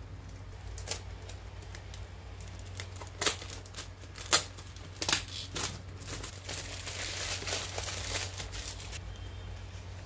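Thin plastic wrapping being torn and crumpled off a small cardboard product box, unsealing it. A few sharp crackles come first, then a denser stretch of crinkling about six seconds in.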